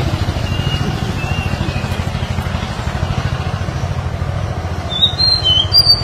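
Oriental magpie-robin singing short whistled notes: a few faint ones in the first second and a half, then brighter, higher notes from about five seconds in. A loud low steady rumble, like a running engine, lies under the song throughout.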